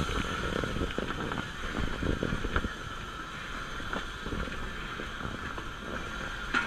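Narrow-gauge NA class 2-6-2T steam locomotive running along the line, heard from its cab: a steady rumble and rattle with a few sharp clicks.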